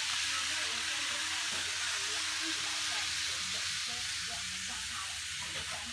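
N-scale model trains running on the layout's track, heard as a steady rolling hiss over a low hum.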